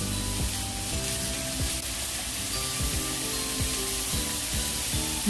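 Background music with a regular beat, over the steady sizzle of beef frying in a pan.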